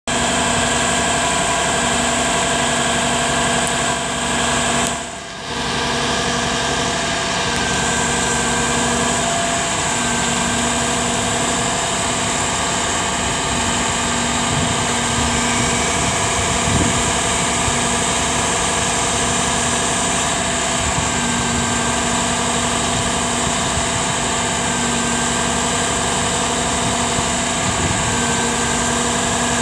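2014 International WorkStar 7400 grapple truck's diesel engine running steadily while the hydraulic grapple loader is worked, with a brief dip in the sound about five seconds in.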